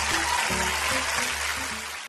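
Background music with repeating bass notes and a dense bright texture on top, growing a little quieter near the end.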